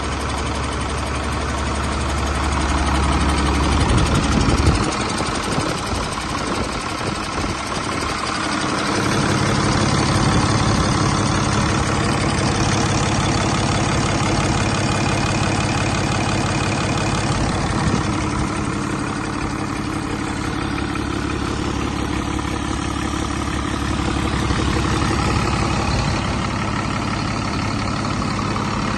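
2011 Cummins ISB6.7 inline-six turbodiesel running on a test run, mostly at idle, with its note shifting about five seconds in and again near nine seconds.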